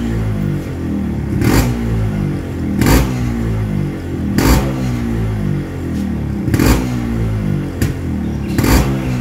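Two-stroke Yamaha motorcycle engine idling and being blipped on the throttle five times, roughly every one and a half to two seconds, each rev rising sharply and falling back to idle.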